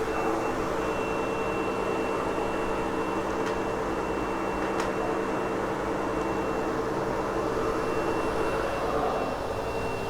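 Sebo X8 upright vacuum cleaner running steadily over a loop-pile carpet, a constant motor whine over a rushing airflow, with a couple of faint ticks in the middle.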